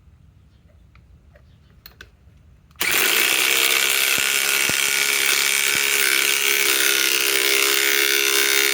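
DeWalt DCF921 Atomic compact cordless impact wrench hammering continuously as it drives a fastener, starting about three seconds in and lasting about six seconds before stopping abruptly. A few light handling clicks come before it.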